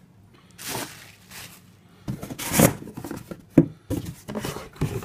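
Handling noises of an unboxing: irregular rustles and a few knocks as packaging and the wall connector's parts are moved about, loudest about halfway through.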